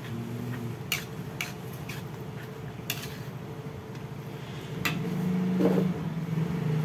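Metal spatula clinking and scraping against an aluminium wok as seblak is stirred, a few sharp knocks in a few seconds. A steady low hum runs underneath and grows louder near the end.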